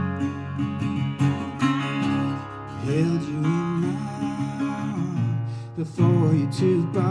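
Metal-bodied resonator guitar strummed in an acoustic blues song, with a man's singing voice coming in over it about two and a half seconds in.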